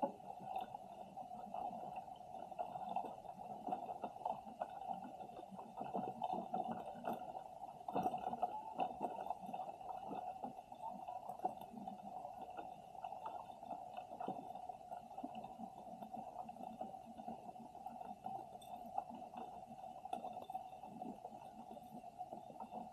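Muffled underwater ambience picked up by a submerged camera's microphone: a steady hum with many faint, irregular clicks and ticks.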